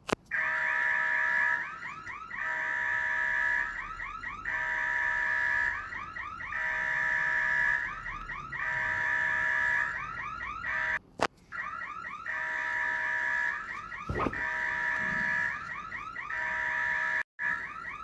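Electronic alarm-like sound effect: a warbling multi-tone alarm repeating in cycles of about two seconds, briefly cutting out twice.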